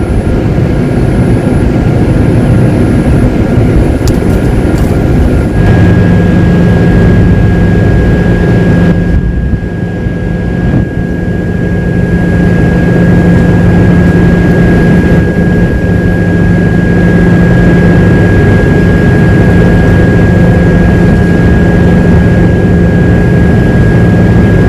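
Loud, steady rumbling noise. About five seconds in, a continuous machine-like hum sets in abruptly and holds steady.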